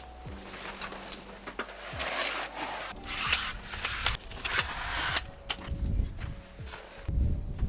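Rustling and scraping of things being handled, in several noisy bursts through the middle, with a low rumble near the end.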